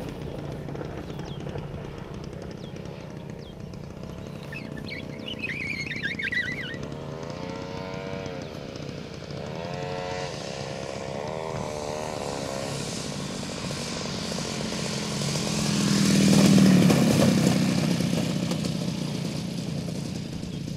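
Radio-controlled scale warbird model's engine running in flight and on a landing approach, its pitch rising and falling with throttle and passes. It grows loudest about three quarters of the way through as the plane comes in close.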